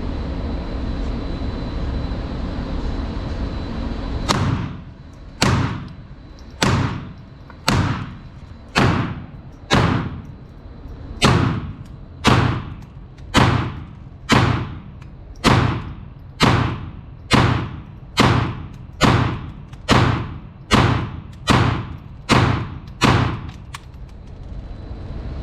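Sig Sauer P322 .22 LR pistol firing a string of about twenty shots, roughly one a second, starting about four seconds in. Each shot is a sharp report with a short echo off the indoor range.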